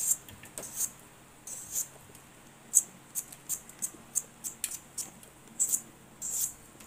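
A hand vegetable peeler scraping the rind off a winter melon: about a dozen quick, irregularly spaced scraping strokes.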